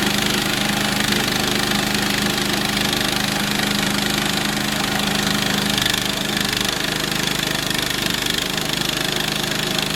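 Small gasoline engine of a Harbor Freight Central Machinery band sawmill running steadily while the mill saws a hard, dry mesquite log. The engine note changes about six seconds in, with a higher tone coming up.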